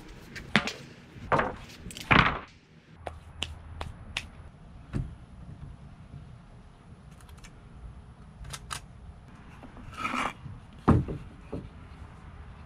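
Wooden lumber boards being handled: scattered knocks and short scrapes, the loudest about two seconds in and again about eleven seconds in.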